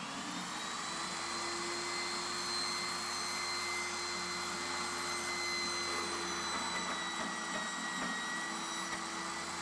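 Benchtop table saw running steadily with a high motor whine while ripping a thin edge strip off a sheet of 1.5-inch foam board. The pitch dips slightly about eight seconds in.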